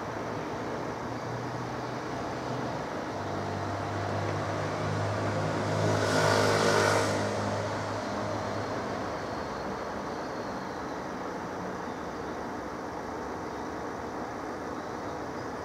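A motor vehicle passing close by out of sight: a low engine hum builds from about three seconds in, is loudest for about a second around six to seven seconds, then fades away to a steady background hum.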